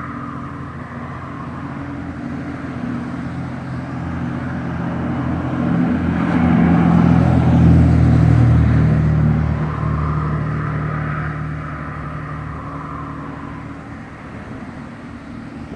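A passing engine, likely a vehicle on a nearby road, grows steadily louder to a peak about eight seconds in and then slowly fades away.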